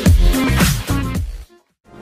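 Electronic dance music with a heavy bass beat. It cuts out about a second and a half in, leaving a brief silence.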